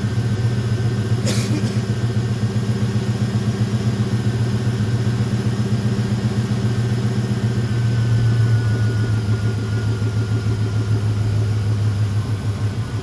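Car engine idling after starting, with a steady, even pulsing exhaust beat and an exhaust leak on the passenger side. There is a short click about a second in, and a faint whine that slides slowly lower in the second half.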